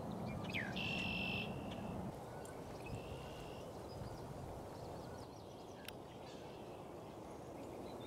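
Small birds calling now and then, with one longer call about a second in and a few short chirps, over a steady low outdoor rumble.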